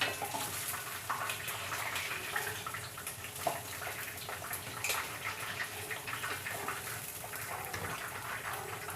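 Sliced potatoes sizzling steadily in hot frying oil as they are lifted out, with scattered light clicks.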